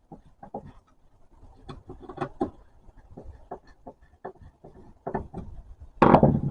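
Hands handling clock parts on a workbench: scattered small clicks, taps and rubbing, then one louder thump about six seconds in.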